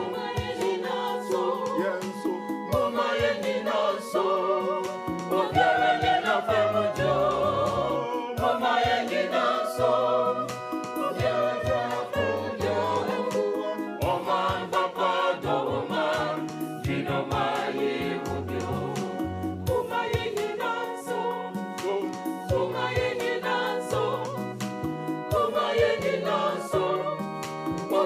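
Background music: a choir singing over a keyboard, a moving bass line and percussion.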